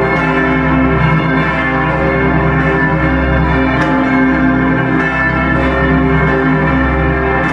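Bells pealing in a steady run of strikes, about two a second, their tones ringing on and overlapping above a sustained low drone.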